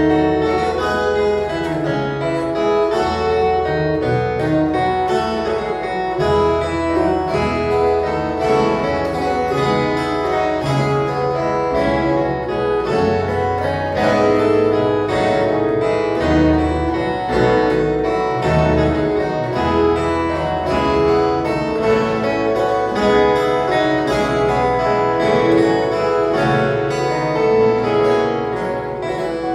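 A viola caipira orchestra playing: many bright plucked steel strings together over a bass line that moves in steps.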